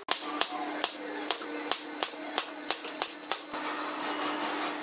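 Pneumatic nailer firing nails into wooden slats in quick succession, about ten sharp shots at roughly three a second, stopping about three and a half seconds in.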